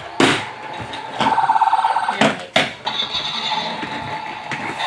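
Little Tikes Touch N Go Racer toy police car being pressed down and handled on a hardwood floor: several sharp knocks, a short pulsing electronic buzz about a second in, and a steady electronic tone from about three seconds in.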